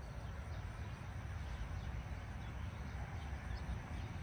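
Wind rumbling on the microphone outdoors, with a few faint bird chirps.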